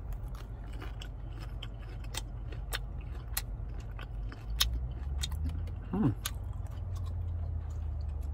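A man chewing a mouthful of freshly fried tapioca balls, with scattered small mouth clicks, over a steady low car-interior rumble. About six seconds in there is a brief hummed "mm" from the eater.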